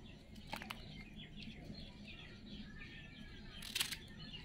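Kitchen knife cutting through the stems of raw green bananas: two crisp cuts, the louder one near the end. Birds chirp throughout.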